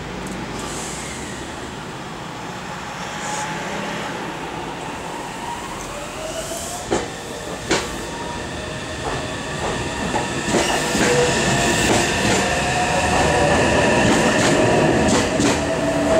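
Meitetsu 3150 series and 3700 series electric multiple unit gathering speed past the platform. Motor whine rises in pitch from about six seconds in, with sharp wheel clicks over the rail joints, two of them close together about seven seconds in, and the sound grows steadily louder.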